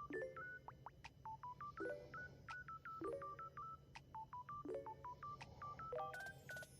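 Faint repeating electronic beeps: short clicks each followed by brief tones stepping in pitch, the pattern coming round about every second and a half, over a low steady hum.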